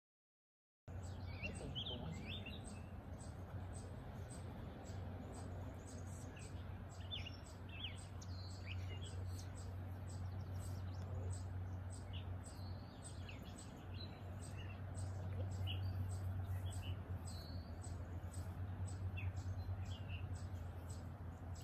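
After about a second of silence, songbirds chirp and call in short, scattered notes over a steady low hum, with frequent faint high ticks.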